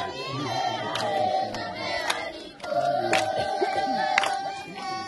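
A crowd of schoolchildren singing together in unison, holding long notes, with sharp hand claps roughly once a second.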